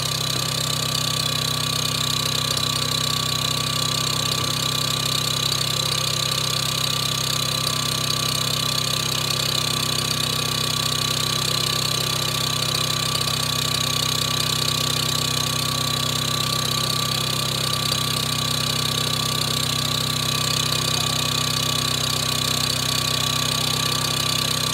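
Engine idling steadily: a constant hum with a thin, steady high whine over it.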